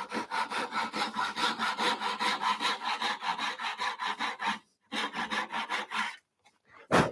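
Hand saw cutting through wood in quick, even strokes, about four a second, cutting the haunch off a tenon. The sawing breaks off briefly about four and a half seconds in, resumes, and stops about six seconds in. A single knock follows near the end.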